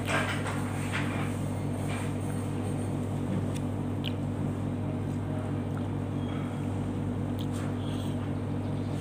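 A steady low hum, with a few faint clicks of a spoon and fork against a plate as noodles are eaten.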